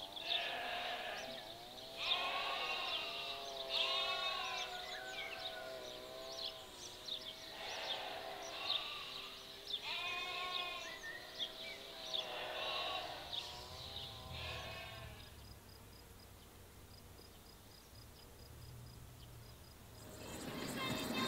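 Sheep bleating, a run of wavering calls about a second long, some overlapping, for roughly the first fifteen seconds before they fall quiet. A louder sound comes in near the end.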